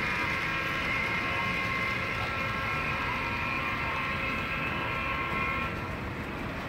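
HO scale model freight train running on the layout track: a steady whine of several high tones over a low rumble, the whine stopping near the end.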